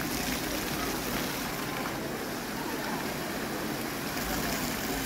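Fountain water splashing steadily into its pool, an even rushing hiss.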